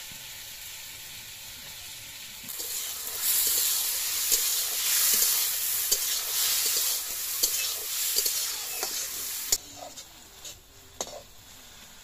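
Sliced tomatoes and peppers sizzling loudly in a hot metal wok while a metal spatula stirs them, clicking and scraping against the pan. The sizzle starts about two and a half seconds in and stops suddenly near the three-quarter mark, leaving a few faint taps.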